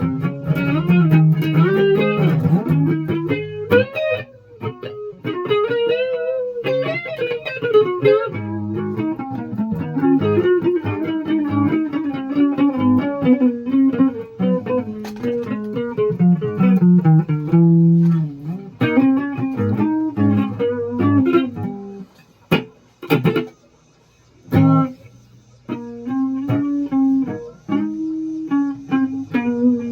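Electric guitar played through an effect: quick runs of notes with bends and slides over held low notes, broken briefly by a few short pauses and sharp clicks about three quarters of the way through.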